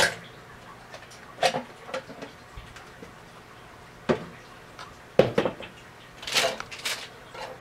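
Scattered hard plastic clicks and knocks from a water filter jug being taken apart as the lid comes off and the used cartridge is pulled from the hopper. A brief scraping rustle comes near the end.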